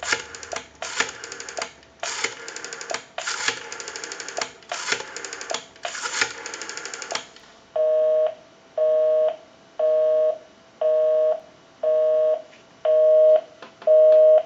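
Western Electric 302 rotary dial pulsing out a number: a quick burst of clicks for each digit, about six digits. About seven and a half seconds in, the line answers with a busy signal, a two-tone beep going on and off about once a second.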